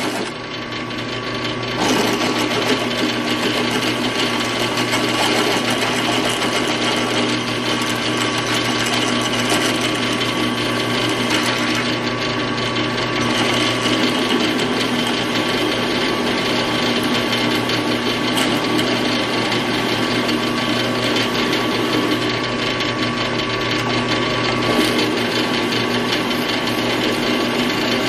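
WEN 4225 floor drill press running steadily, its 3/8-inch cobalt bit cutting through hot-rolled steel with a continuous motor hum and the grating of chips being cut. The cutting gets louder about two seconds in.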